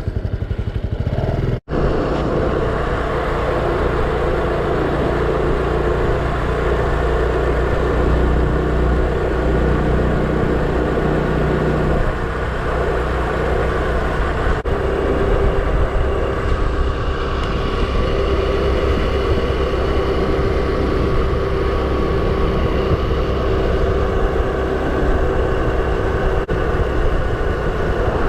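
Honda Super Cub's four-stroke single-cylinder engine running steadily on the move, with a low rush of wind and road noise. The sound cuts out for an instant near two seconds in.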